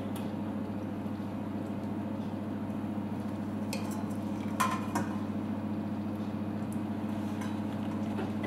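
A few light metallic clinks of a stainless slotted spoon against a stockpot and steel bowl as a poached fish fillet is lifted out, the loudest a pair near the middle. A steady low hum runs underneath.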